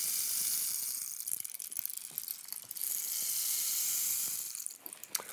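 Wooden rainstick tipped upright, its grains trickling down inside with the sound of rain: a hissing rush that thins to a scattered patter about a second in, swells again near three seconds, and dies away near the end.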